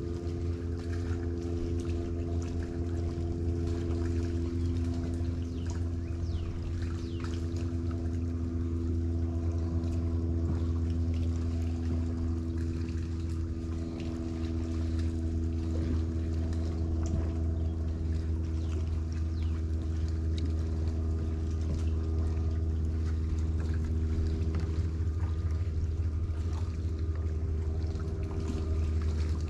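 A boat engine running steadily: a low drone with a constant hum above it that holds one pitch throughout.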